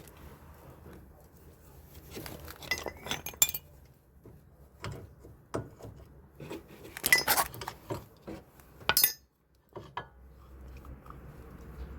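Light metallic clinks and taps of tools and brake parts being handled, in small clusters a few seconds apart.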